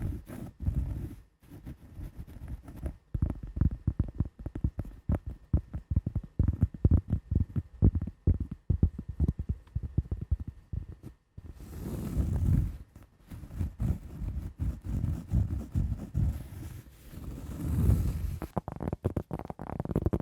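Rapid tapping and scratching on a cork pad and wooden blocks, with a dense run of quick taps. The tapping pauses briefly about a second in and again just past the halfway point, and gives way to longer scratching strokes around the middle and near the end.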